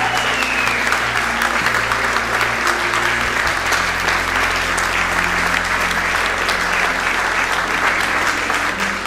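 A crowd of wedding guests applauding steadily, a dense patter of many hands clapping.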